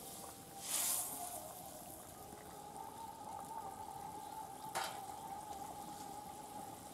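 Fish curry bubbling in a metal kadai, with a spatula scraping through it once about a second in and a single sharp tap on the pan a little before the end. A steady, faintly wavering whine runs behind it.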